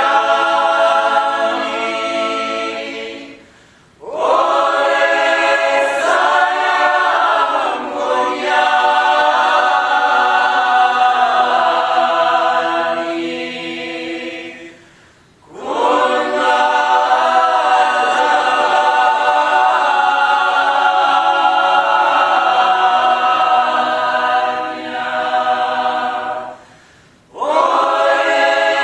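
Mixed a cappella choir singing a polyphonic folk song in sustained harmony, in long phrases broken by three short pauses: about four seconds in, about halfway through, and shortly before the end.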